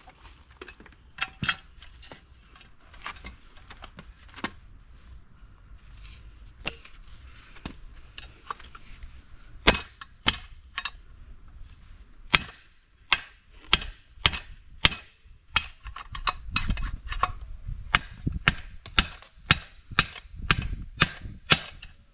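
Hammer blows in motorcycle workshop work: light scattered taps and knocks at first, then sharp, loud strikes from about halfway, quickening to about two a second near the end.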